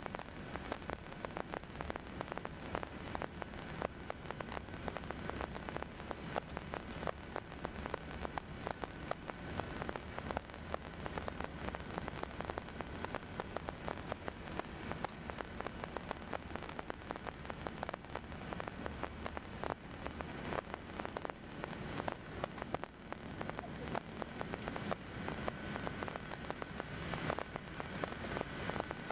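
Dense crackling and popping from the camera's microphone distorting on loud noise, over the low rumble of an Airbus A380's Rolls-Royce Trent 900 engines heard inside the cabin during takeoff. A thin steady whine grows stronger near the end.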